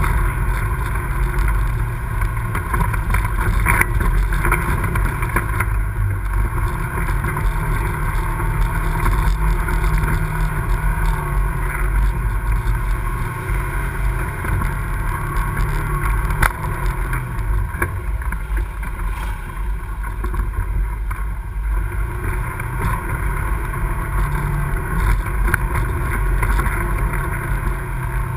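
ATV engine running under load on a muddy trail, its pitch rising and falling with the throttle, with one sharp knock about halfway through.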